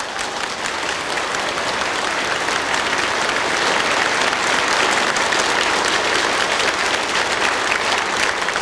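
Theatre audience applauding: dense, steady clapping that builds over the first couple of seconds and then holds.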